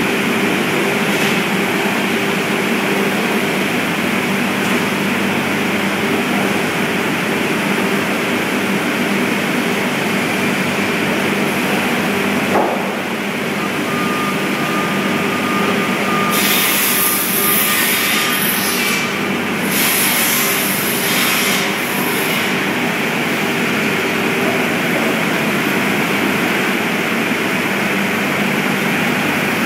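Manitou MT732 telehandler's diesel engine running steadily as the machine manoeuvres and lifts a load of lumber. There is a single knock a little before halfway, and two short spells of hissing about two-thirds of the way through.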